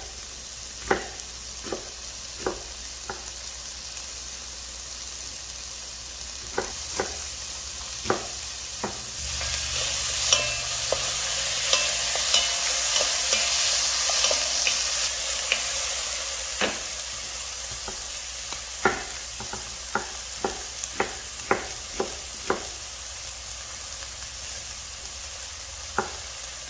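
Diced pork sizzling in a little oil in a pan, with a knife chopping onion on a wooden cutting board in sharp single knocks. For several seconds in the middle, stirring with a wooden spatula makes the sizzle louder, with light scraping clicks; the chopping then resumes.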